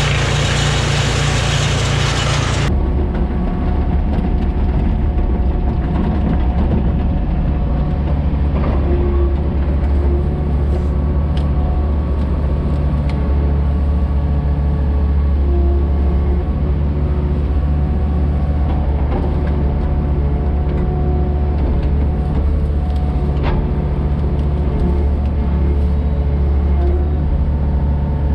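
A loud rushing noise cuts off suddenly near the start. It gives way to a heavy engine running steadily at an even speed.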